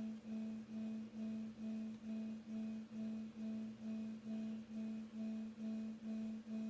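A synthetic low hum-like tone pulsing evenly about twice a second, with fainter higher tones above it. It is presented as the sound of the red dwarf star Gliese 674, a sonification rather than a recording.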